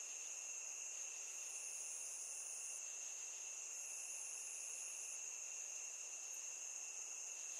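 Night-time crickets trilling steadily and faintly, a continuous high chirring with a second, higher insect trill joining twice for a second or so.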